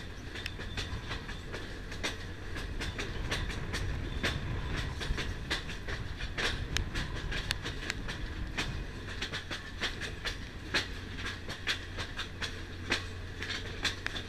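Passenger train rolling along the track, heard from a coach's vestibule: a steady low rumble of wheels on rails with frequent sharp clicks and rattles.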